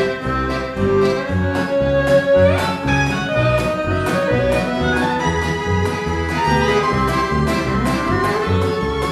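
Live acoustic Gypsy band of violins, double bass, guitar and accordion playing a fast piece, with the violins leading over an even rhythmic pulse from the bass and guitar. A violin slides steeply up in pitch about two and a half seconds in.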